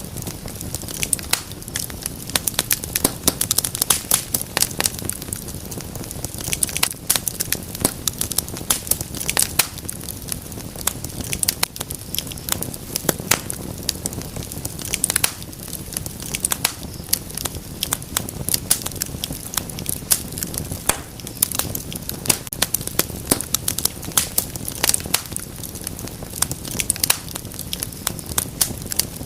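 Wood fire crackling steadily in a fireplace: many sharp, irregular pops and snaps over a low, steady rumble of burning.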